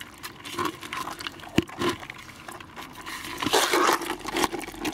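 Edible crabs shifting in a plastic bucket: scattered clicks and knocks of shell and legs against the plastic, with one sharp knock about a second and a half in and a denser scraping, rustling stretch a little after three seconds.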